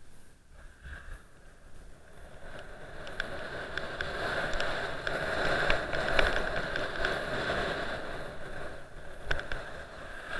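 Skis sliding and scraping over packed, tracked piste snow on a downhill run, a steady hiss that builds about two seconds in, peaks in the middle and eases near the end, with a few sharp ticks scattered through it.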